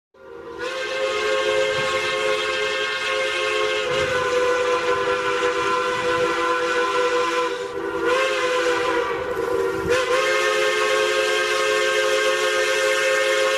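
Steam locomotive whistle blowing one long, steady chord over a hiss of steam, fading in at the start and dipping briefly in pitch twice a little over halfway through.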